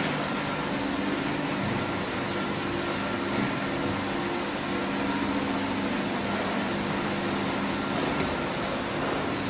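Steady drone of factory machinery: an even rushing noise with a low, continuous hum held under it.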